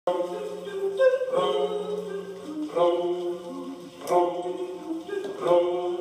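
Voices singing together, mostly unaccompanied, holding long notes over a steady low drone, with the chord changing about every second and a half.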